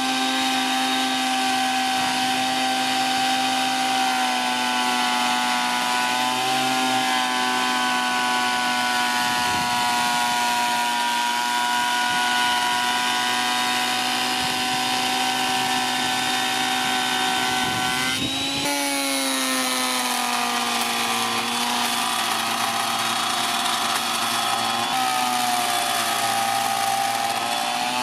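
Parkside PADM 1250 planer-thicknesser running loud and steady, its cutter block taking a 2 mm cut off an oak board. The motor's whine sags in pitch as the cut loads it, most sharply about two-thirds of the way through, then climbs back.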